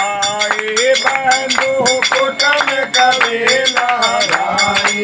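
Men singing a Hindu devotional bhajan (kirtan) together, with hand claps and clinking metal percussion keeping a quick, steady beat of about four strokes a second.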